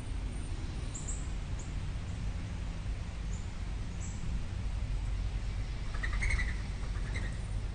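Wild birds giving short, high chirps here and there, with a brief burst of calls about six seconds in, over a steady low background rumble.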